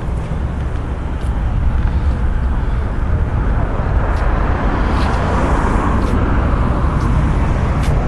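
Road traffic noise with a steady low rumble, growing louder about a second and a half in as vehicles go by.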